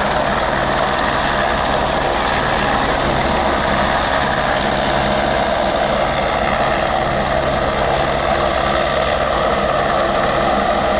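Helicopter's turbine and rotor running steadily and loudly.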